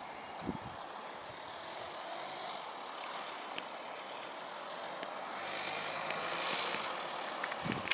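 Outdoor vehicle noise: a steady rush that swells about five seconds in, with a faint low hum beneath it.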